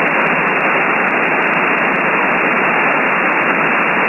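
Steady shortwave static hiss from a receiver in upper-sideband mode on the 20-metre ham band, with no station transmitting. The hiss is held within a narrow voice-width passband, so it sounds dull, with no highs.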